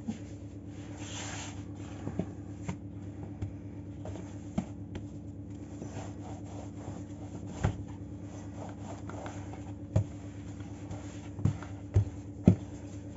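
Embossed plastic rolling pin rolling out bread dough on a silicone mat: a soft rubbing, broken by scattered sharp knocks as the pin bumps the mat and table, the loudest in the second half.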